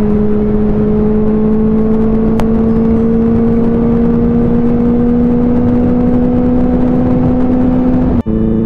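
Benelli TNT 600i motorcycle's inline-four engine running at a steady cruise, its pitch climbing slowly as the bike gains speed, over a rush of wind and road noise. The sound cuts out for a moment near the end.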